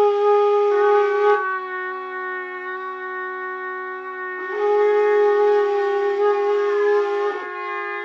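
A conch shell, a curved animal horn and a small brass horn blowing long held notes together as a rough fanfare chord. The loudest note drops out about a second and a half in, comes back about three seconds later, and drops out again near the end while the other notes hold on.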